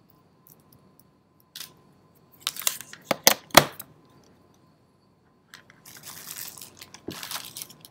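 Packing materials and cables being handled on a table: a quick cluster of sharp knocks and rattles around three seconds in, then plastic bags crinkling for the last couple of seconds.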